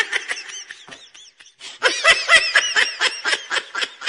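A person laughing in quick, high, breathy bursts. The laughter trails off, then breaks out again about two seconds in.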